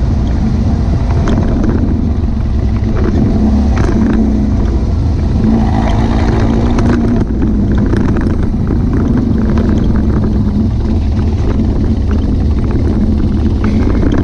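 Car engine and road noise heard from inside the cabin while driving, a steady drone with a constant hum and scattered light clicks.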